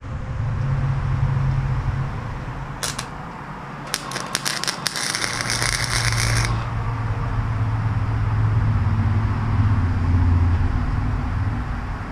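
Wire-feed welder laying tack welds on a steel bracket: a short crackle about three seconds in, then a sputtering crackle of arc welding from about four to six and a half seconds. A low steady hum runs underneath, loudest at the start and through the second half.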